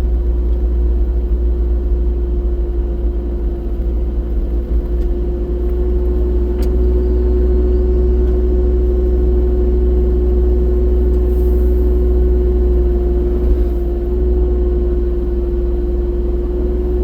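Excavator's diesel engine running steadily under load: a deep rumble with one steady droning tone over it.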